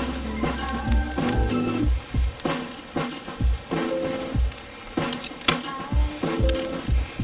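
Food sizzling and crackling as it fries in a pan over a campfire, under background music with a beat.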